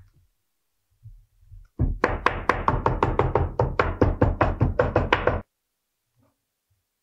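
A small hammer tapping quickly on the layered leather of a wallet laid on a stone slab, about five light strikes a second for roughly three and a half seconds, each with a short hard ring from the slab.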